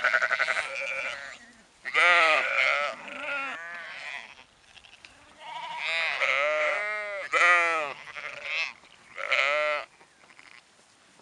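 A flock of sheep bleating, one wavering call after another and several overlapping at once, falling quiet near the end.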